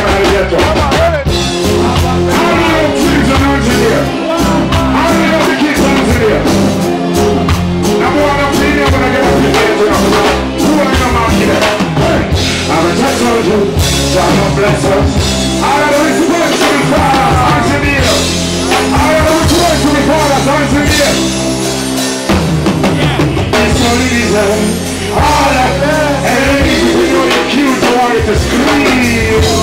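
Live reggae band playing loudly, with drums, bass, electric guitar and keyboards, while a male vocalist sings into a microphone over the amplified mix.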